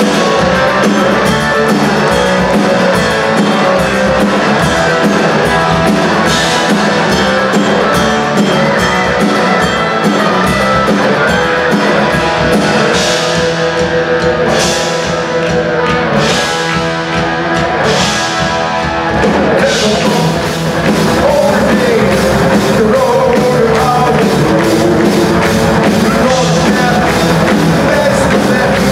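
Folk metal band playing live and loud: electric guitars, bass and drum kit with sung vocals, with cymbal crashes in the middle stretch.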